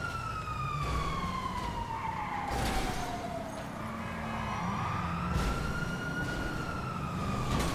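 Video-game police car siren wailing slowly: one long fall in pitch, a rise, then another fall, over a car engine running. Two short knocks come through partway.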